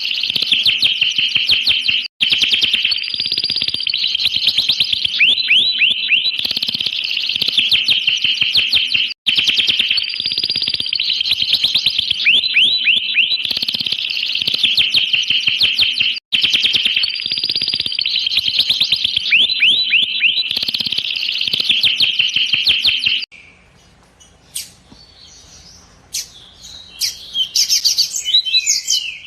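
Domestic canary singing a long, continuous song of fast rolling trills and rapid chirps, broken by three short sudden gaps. About 23 seconds in, the song stops abruptly; a few faint clicks follow, and short chirps come back near the end.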